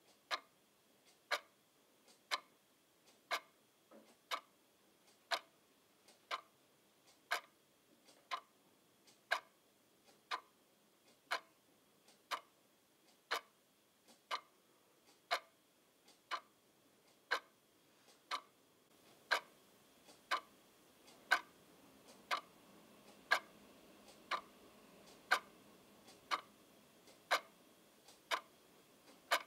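A clock ticking steadily, about one tick a second. A faint low background rumble rises under the ticks in the second half.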